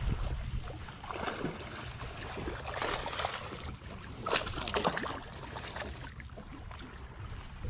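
Water splashing and sloshing around a small fishing boat, with a few louder splashes about a second in, around three seconds and around four and a half seconds, over a steady low rumble.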